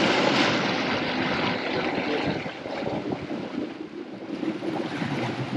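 Boat running at speed: water rushing in the wake and wind on the microphone, an even noise that slowly gets quieter.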